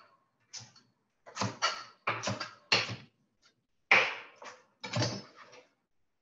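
Chef's knife rough-chopping kale on a cutting board: about fifteen quick, uneven chops in small clusters, which stop shortly before the end.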